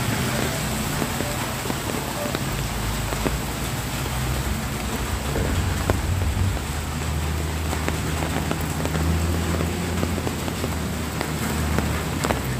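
Light rain falling on a wet road, an even hiss with scattered sharp drop ticks, over a steady low hum.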